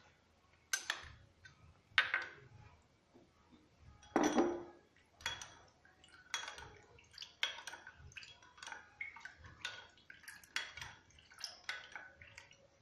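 Spoon clinking and scraping against a dish in a run of irregular clinks, with a louder ringing clink about four seconds in, as honey is spooned into onion juice.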